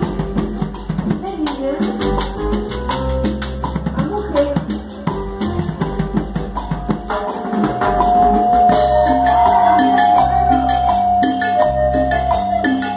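Live band music: timbales and a drum kit keep a steady Latin beat under bass and melody, with one long held note from about halfway through.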